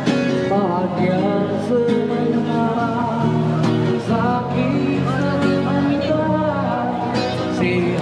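Background music: acoustic guitar with a singing voice.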